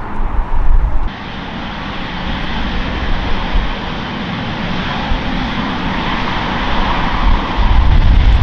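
Boeing 777-300ER's GE90 jet engines running at low power, a steady rushing whine, as the airliner rolls along the runway after landing. Gusts of wind buffet the microphone in the first second and again near the end.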